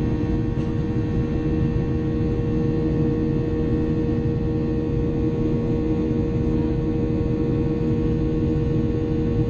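Steady cabin drone of a Boeing 737-800's CFM56-7B jet engines: a low rumble with several steady humming tones over it.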